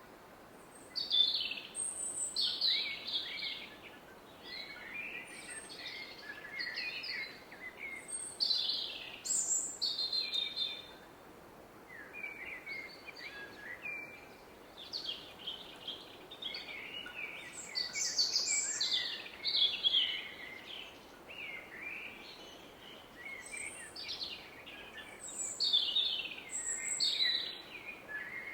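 Several songbirds singing in woodland, short phrases overlapping one after another, over the steady rush of a distant river.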